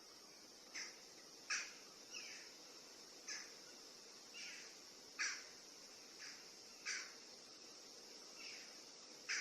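A steady high-pitched insect drone, like crickets, with short bird calls about once a second, some sliding downward.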